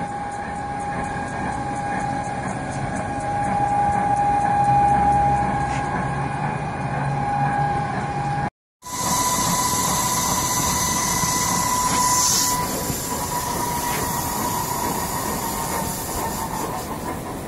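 Haas TL-3B CNC lathe running, its spindle and two-speed geared headstock giving a steady whine over mechanical noise. A cut about halfway through breaks the sound briefly, and afterwards the whine is a little higher in pitch.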